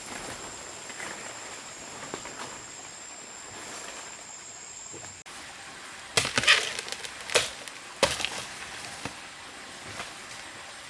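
A blade chopping into bamboo: a quick cluster of sharp strikes about six seconds in, then single strikes roughly a second apart. Before them there is only a faint steady hiss with a thin high whine.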